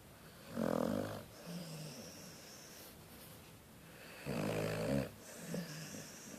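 Dog snoring in its sleep: two loud snores, about half a second in and again about four seconds in, each followed by a shorter, fainter one.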